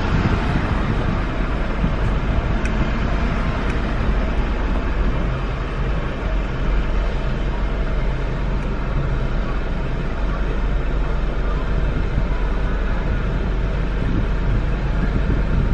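Steady low rumble of a car's engine and road noise, heard from inside the cabin as the car creeps forward in slow traffic.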